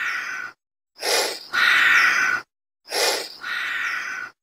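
Chameleon hissing: a short sharp puff followed by a longer steady hiss, repeated about every two seconds with brief silences between.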